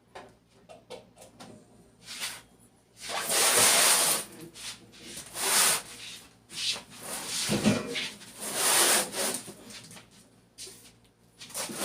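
Rubbing and rustling handling noises in several bursts, with a few light knocks and clicks before them.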